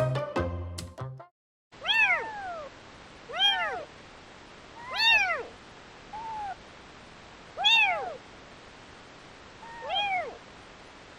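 Very young kitten meowing repeatedly: about six high, thin calls, each rising and then falling in pitch, spaced a second or two apart. Background music ends about a second in.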